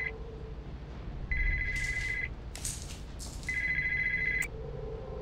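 Mobile phone ringing with an electronic beeping ringtone, each ring about a second long and repeating about every two seconds; the last ring cuts off with a click, as the call is taken.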